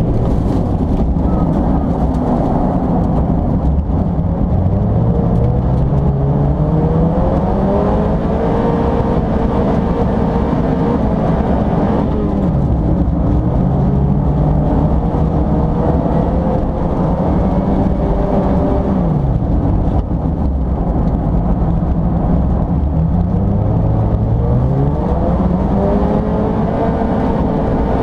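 Mazda MX-5 race car's four-cylinder engine heard from inside the cabin, accelerating hard: its pitch climbs and falls back several times as it is driven through gears and corners.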